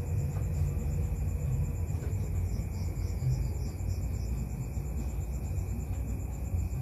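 Crickets chirping in a steady, fast pulsing trill, over a low steady rumble.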